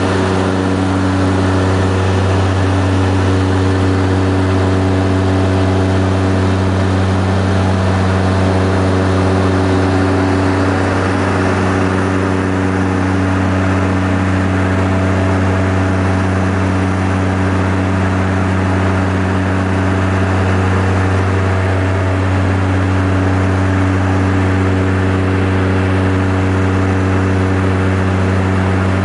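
Seaplane's propeller engines running steadily in flight, heard from inside the cabin: a loud, even low hum with several fixed tones above it.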